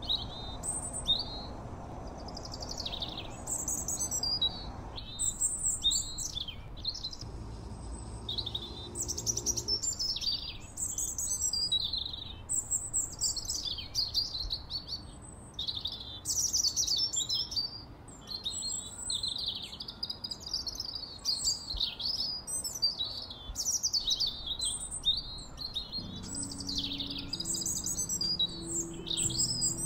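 Small songbirds chirping and singing in quick warbled phrases, one after another throughout.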